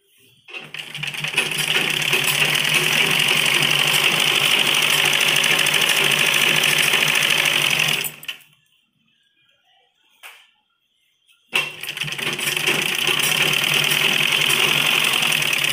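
Gulzar sewing machine running at a steady speed, stitching along a folded fabric strip. It runs for about eight seconds, stops for about three seconds with a single brief click in the pause, then starts again and runs to the end.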